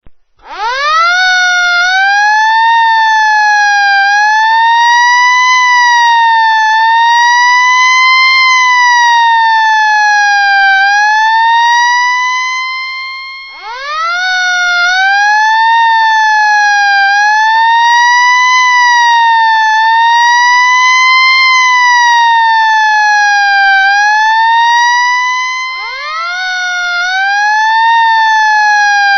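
Police siren wailing: it winds up quickly from a low pitch, then rises and falls slowly in a steady cycle every few seconds. It sweeps up again from low about halfway through and once more near the end.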